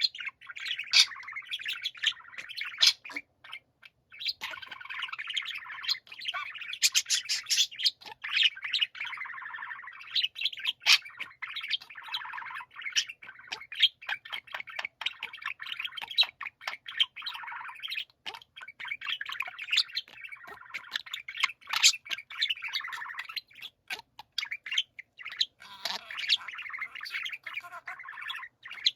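Several budgerigars warbling together: a dense, continuous chatter of chirps and trills with many sharp clicking notes.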